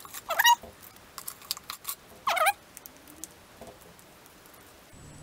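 Grape jam being squeezed out of a foil ration packet onto crackers: two short, squeaky squelches about two seconds apart, with small clicks and crinkles of the packet between.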